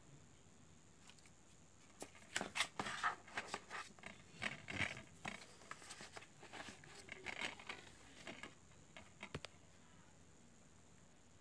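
Paper booklet and printed insert rustling while a plastic DVD case is handled: a run of soft rustles and small clicks, starting about two seconds in and lasting about seven seconds.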